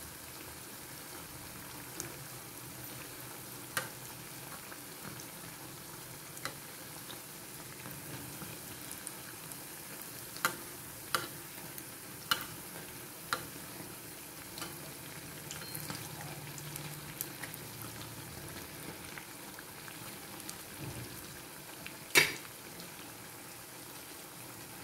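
Potato-slice pakoras deep-frying in oil in an iron kadai: a steady sizzle. A metal spatula turning them over clicks against the pan several times, loudest near the end.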